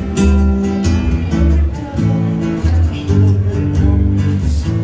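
Neil Peterson custom acoustic guitar strummed in a steady rhythm, with an electric bass holding low notes under it, played live.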